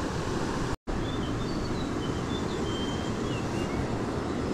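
Steady rushing of a mountain stream, with a few short high chirps over it. The sound cuts out completely for an instant just under a second in.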